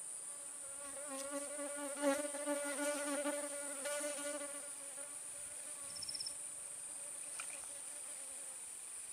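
A flying insect buzzing close by, its hum wavering in pitch as it moves, loudest in the first half and dying away near the end, over a steady high shrill of insects.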